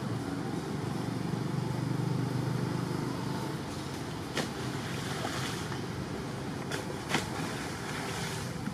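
Steady low outdoor rumble and hiss, with a few brief sharp clicks about four and a half and seven seconds in.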